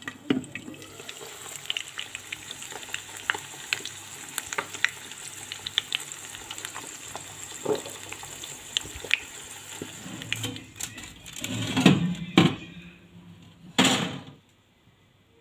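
Eggs frying in oil in a frying pan, sizzling with many small crackling pops. Near the end come a few louder knocks, and then the sound stops.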